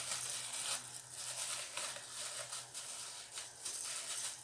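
Plastic wrapping crinkling and rustling irregularly as it is handled and opened around a silicone baby rattle teether.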